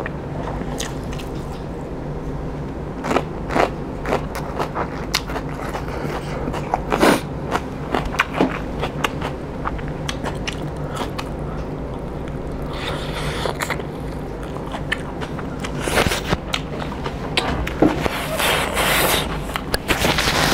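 Close-up mouth sounds of eating by hand: chewing and lip-smacking on pork curry and rice, many short wet clicks, over a steady low background hum. Near the end comes a longer noisy stretch as a tissue is held to the nose.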